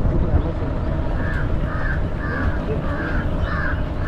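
A crow cawing over and over, about two caws a second, starting about a second in, over a steady low rumble.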